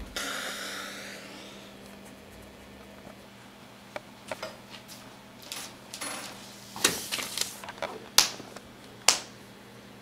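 Scattered taps, clicks and short scratchy strokes, with a brief swish at the start and two sharp knocks, the loudest sounds, near the end.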